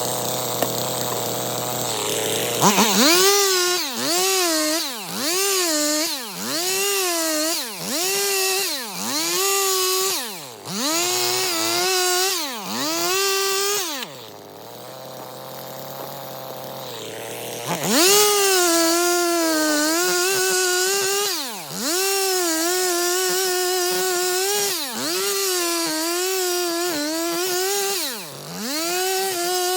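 Stihl MS 250 two-stroke chainsaw bucking firewood. It idles at first, then runs at high revs, the pitch dipping and recovering about once a second. It drops back to idle for a few seconds in the middle, then revs up and cuts again.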